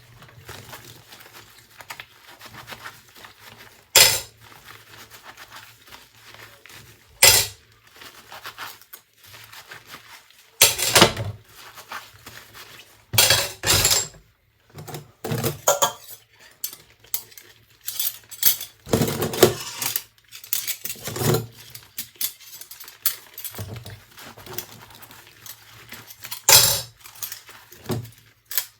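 Dishes and cutlery clinking and clattering as they are washed by hand, with irregular knocks and a few short scrubbing or rinsing bursts.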